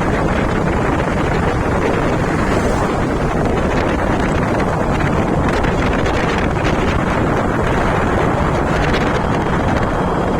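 Loud, steady wind noise buffeting the microphone, with a low rumble underneath.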